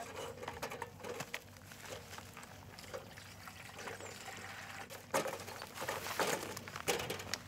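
Tomatoes being handled and set into the metal bowl of a small weighing scale: soft rustling and light knocks, with a few sharper knocks in the second half.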